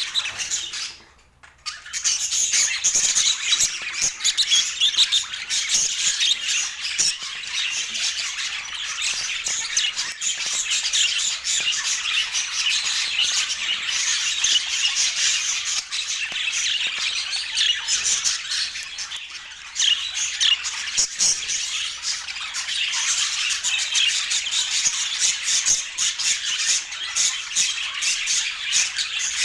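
Budgerigars chattering and warbling continuously, a busy stream of high squawks and chirps that drops out briefly about a second in.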